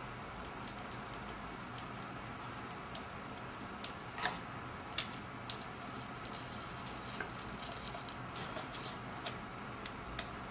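Irregular light metallic clicks and ticks of an Allen wrench turning the Allen screws that fasten a hub adapter to a steering wheel, over a faint steady hiss. The clicks come singly at first and then more often near the end.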